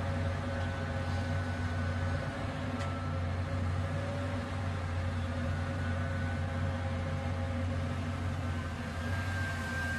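Caterpillar 320 hydraulic excavator's diesel engine running steadily while the machine digs: a low, even hum with a fainter high whine above it.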